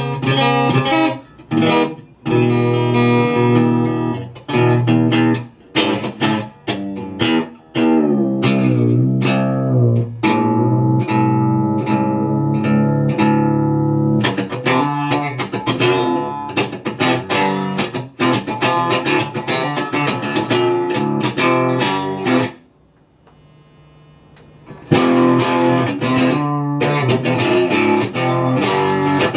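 Electric guitar played through an Egnater Tweaker valve amp into a VHT 1x12 cabinet: picked chords and riffs with short choppy stops, breaking off for about two seconds roughly two-thirds of the way through, then starting again.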